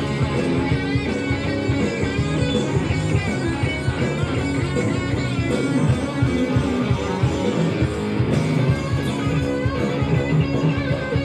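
Rock band playing live: electric guitars over bass guitar and a steady drum beat.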